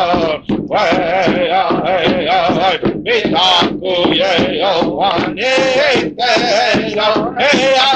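Singing voice, a melody of wavering held notes sung in short phrases with brief breaks between them.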